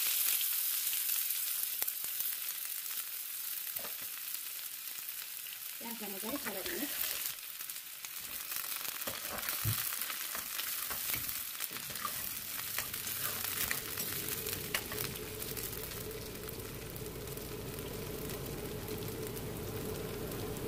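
Chopped red onions frying in smoking-hot mustard oil in a metal kadai: a loud sizzle as they go in near the start, settling into a steady hiss. A metal spatula scrapes and stirs them through the oil.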